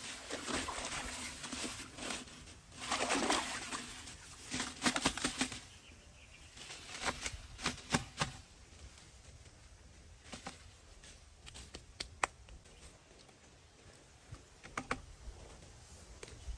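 Leafy branches rustling and crackling as they are pressed into a plastic bucket, in bursts over the first six seconds, followed by scattered sharp clicks of handling and twigs.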